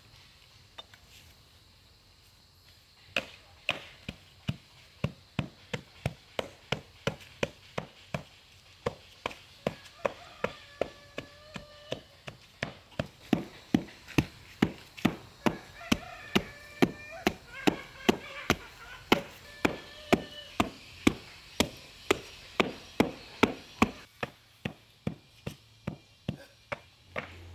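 Chopping with a blade, in rapid, even strokes of about three a second, starting about three seconds in.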